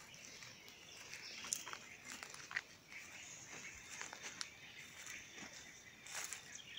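Faint footsteps through dry grass and fallen palm fronds, with a few sharp crackles and snaps, over a quiet natural outdoor background.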